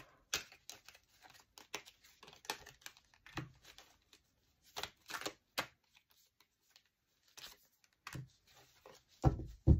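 Oracle cards being shuffled and dealt onto a velvet cloth: scattered soft clicks and rustles of card edges with quiet gaps between. A couple of louder dull knocks come near the end.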